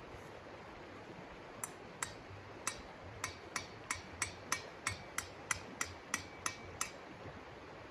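A run of sharp knocks, sparse at first and then settling to about three a second before stopping, some with a faint metallic ring, over a steady hiss.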